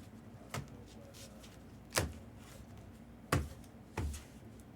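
Trading cards being handled and set down on a table: four short, sharp taps and clicks spread over a few seconds, with faint shuffling between them.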